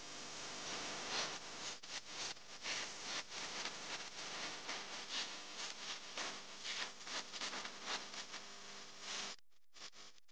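Boeing Model 360 tandem-rotor helicopter flying close by: a rushing rotor noise that rises and falls in quick, irregular gusts, cutting off about nine seconds in.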